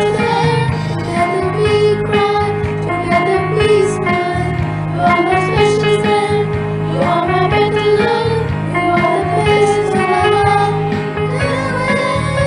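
Children singing a song together with instrumental accompaniment.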